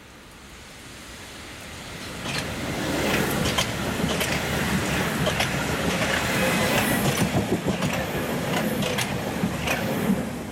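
Hamburg U-Bahn DT4 train passing close by, its wheels clicking over the rail joints. It grows louder over the first few seconds, stays loud while the cars go past, and drops away near the end.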